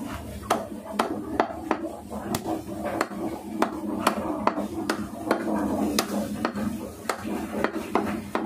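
Meat cleaver chopping a chicken into pieces on a wooden log chopping block: a steady run of sharp chops, about two to three a second.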